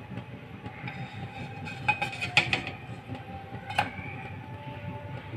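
Wooden spatula knocking and scraping against a nonstick frying pan as a small pancake is lifted and flipped. A quick cluster of clacks comes about two seconds in and one more near four seconds, over a steady low rumble.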